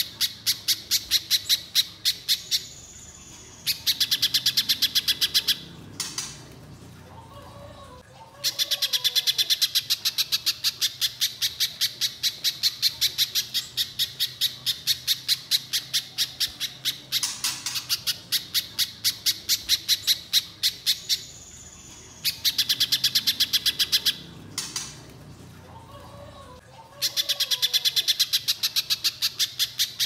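Little spiderhunter singing: long runs of sharp, high, evenly repeated notes, about three to four a second, broken by short pauses. A softer, lower wavering call sounds in two of the pauses.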